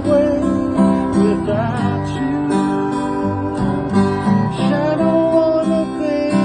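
Music: an acoustic guitar strumming chords in an instrumental passage of a slow song, with no singing.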